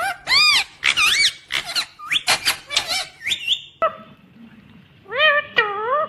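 Indian ringneck parrot (rose-ringed parakeet) calling: a rapid string of short, shrill calls that rise and fall in pitch, then after a pause one longer call near the end.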